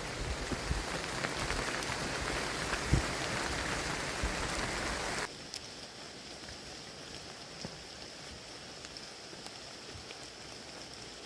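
Steady rain, a dense hiss for the first five seconds that drops abruptly to a quieter patter with scattered drips.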